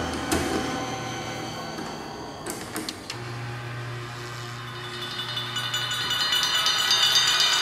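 Electroacoustic percussion and live electronics: stretched, ringing metallic tones over a low hum, with a couple of sharp clicks. From about five seconds in comes a fast rattle of metal strokes that grows steadily louder.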